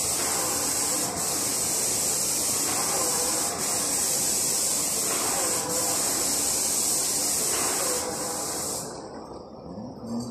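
Airless paint spray gun hissing steadily as it atomises paint at high pressure, dipping briefly a few times, and cutting off about a second before the end when the trigger is released.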